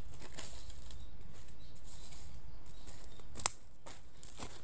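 Quiet rural outdoor ambience: a low steady rumble with a few faint ticks, and one sharp click about three and a half seconds in.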